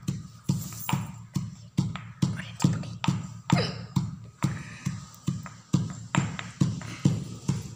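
Pestle pounding in a small mortar: a steady beat of sharp knocks, a little over two a second, each ringing briefly.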